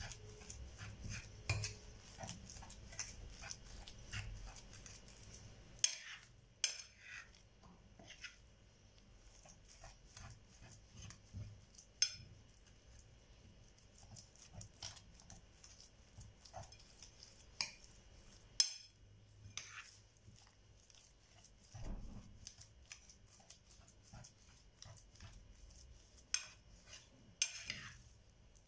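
Metal fork scraping and tapping against a ceramic dish while mashing and mixing a soft potato mixture, in irregular clicks and scrapes with a few sharper taps.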